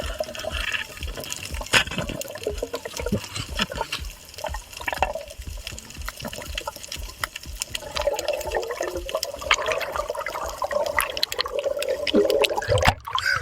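Sea water sloshing and splashing, with a busy run of small clicks and crackles throughout.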